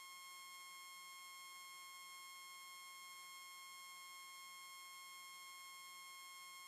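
Faint, steady high-pitched electronic whine with several overtones over a light hiss. It does not change at all, and is the unwanted background noise on the recording.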